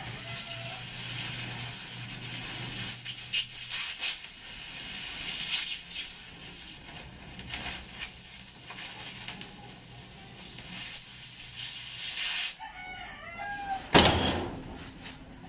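Oxy-fuel cutting torch hissing steadily as it cuts through steel floor plate. Near the end a rooster crows briefly, then comes a single loud metal bang as the cut-out plate is stomped down.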